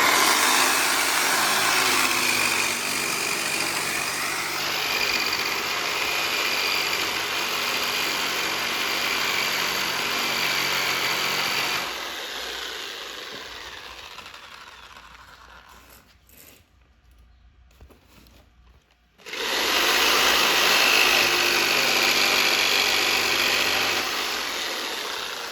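Electric power saw running and cutting wood, in two runs: the first fades away about twelve seconds in, and the second starts suddenly a few seconds later and then fades out near the end.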